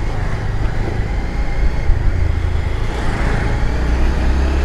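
Wind rumbling on the microphone with engine and road noise while riding a motorbike along a street; scooters pass close by at the start.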